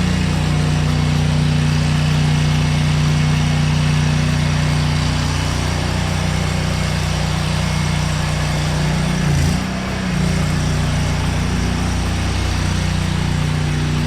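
Gas engine of a pressure washer running steadily under the hiss of water spraying from a wide, low-pressure soap tip. About nine and a half seconds in, the engine dips briefly in pitch and recovers.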